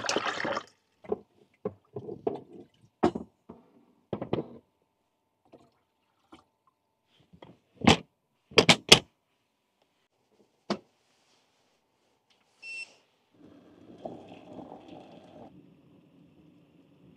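Water poured from a plastic ladle into a small electric cooking pot, followed by a run of plastic knocks and clicks from handling a folding plastic crate and its wooden top, with a few sharp snaps in the middle. Near the end a short electronic beep, then a few seconds of low, uneven noise.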